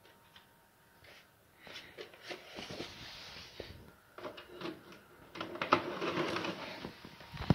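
A plastic VHS cassette being handled: scattered small clicks and rustling, starting after a quiet second or so, with a sharp knock at the very end.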